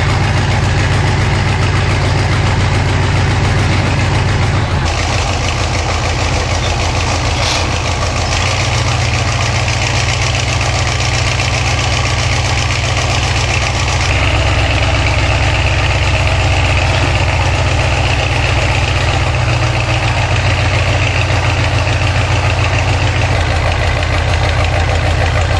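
Engine of a sand-dredging boat running steadily, a low, even hum with the rush of water and sand slurry over it. Its tone shifts abruptly twice, about 5 and 14 seconds in.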